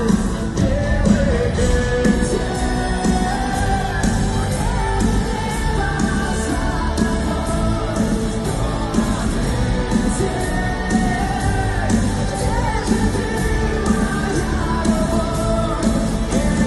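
Live band music, a rock-pop ballad, with a male voice singing a bending melodic line over it.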